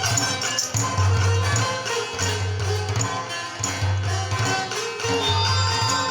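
Chitrali sitar playing a Khowar folk tune over a repeating low drum beat.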